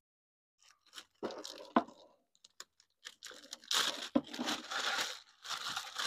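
Clear plastic bag crinkling and rustling as a power adapter is pulled out of it. It comes in bursts, starting about a second in, and is louder and longer in the second half.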